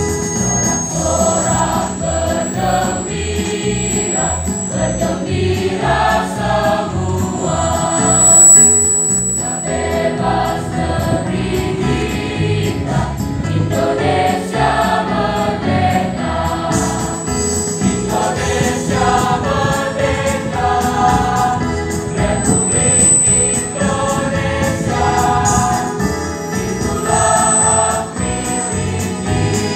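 Large mixed school choir of girls and boys singing an Indonesian patriotic song in harmony, accompanied by an electronic keyboard.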